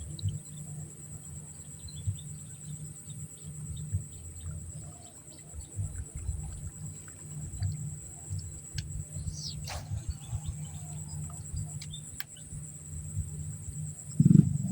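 Swamp ambience: a steady high-pitched insect buzz with scattered short bird chirps and ticks over a low rumble, one falling chirp and a sharp click about two-thirds of the way through. A louder low noise sets in near the end.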